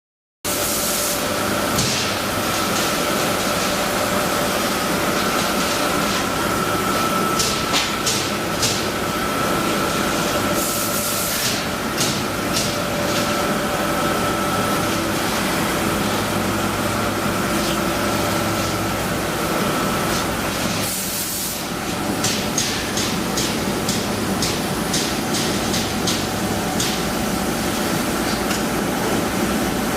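Trumpf L-3030 4000-watt CO2 laser cutting machine running: a steady hum with a held whine, broken again and again by short hisses of gas, in quick runs of several.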